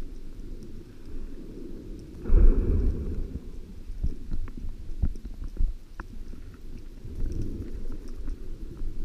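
Muffled underwater noise picked up through a diver's camera housing: a low, steady rumble of moving water, with a louder rush about two seconds in and scattered faint clicks.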